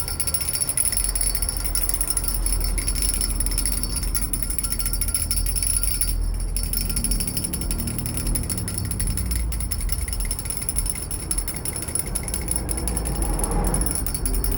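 Handbell rung rapidly with one hand, the clapper striking so fast that the strikes run together into continuous ringing, with a short break about six seconds in.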